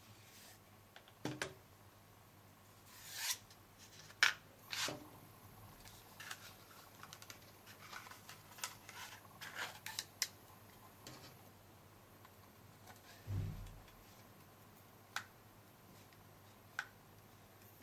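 Scattered small clicks, taps and brief rustles from hands taking apart a plastic photo ball pen and handling its rolled paper photo insert and clear barrel.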